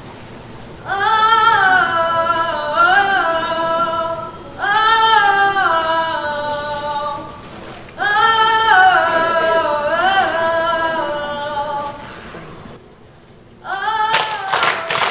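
Young children's choir singing a Christmas song in four separate phrases with brief pauses between them, no accompaniment showing. Audience applause breaks out near the end as the song finishes.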